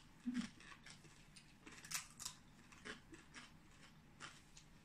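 Scattered crisp crunches and clicks of close-up eating: crispy pata (deep-fried pork knuckle) being chewed and handled with bare hands. A brief low hum comes near the start.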